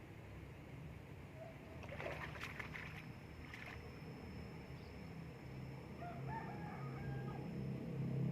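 A rooster crowing faintly about six seconds in, over a low hum that grows louder near the end. A short burst of crackling clatter comes about two seconds in.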